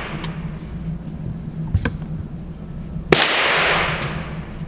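Handgun shots at a shooting range: a fainter crack or two early on, then one loud pistol shot about three seconds in that rings on for over a second.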